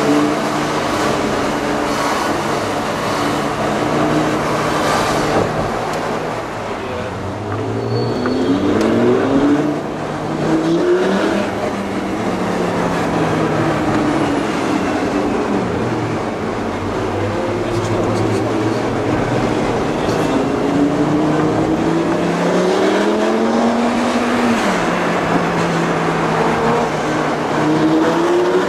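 Sports-car engines heard from inside a car's cabin in slow town traffic: a steady low engine note, with short revs that rise in pitch about a third of the way in, again twice around two thirds of the way in, and once more near the end.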